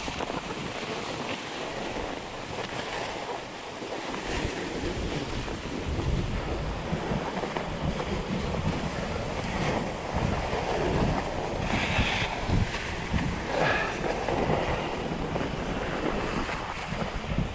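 Wind buffeting the GoPro microphone while cross-country skiing, over the steady hiss of Atomic Skin classic skis gliding in groomed tracks. The low buffeting grows stronger after the first few seconds, as the skier picks up speed.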